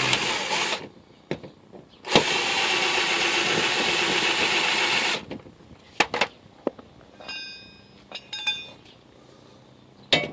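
Electric drill boring the head off a steel rivet in a trailer's axle strap: a short run, then a steady run of about three seconds. After it come a few light metallic clicks and clinks.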